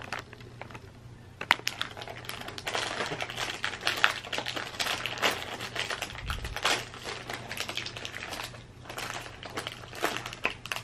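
Plastic wrapper of a pack of butter coconut cookies crinkling and crackling as it is handled and opened, a quick irregular run of sharp crackles.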